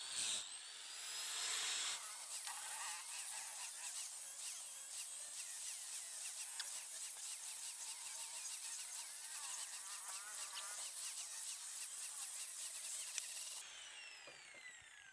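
A small high-speed power tool spins up with a rising whine and runs with a buzzy, rasping contact on the work for about twelve seconds. Near the end it is switched off and winds down with a falling whine.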